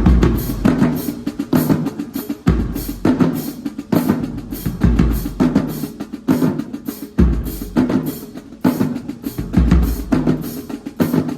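Drumline playing a steady percussion cadence: rapid snare strokes and rimshots over repeated deep bass-drum hits.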